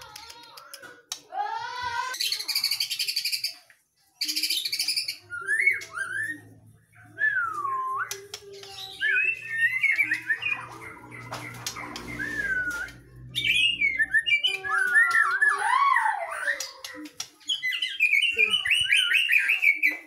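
White-rumped shama singing a varied song: clear whistles that glide up and down, mixed with rapid harsh chattering trills and quick runs of notes, with a couple of brief pauses.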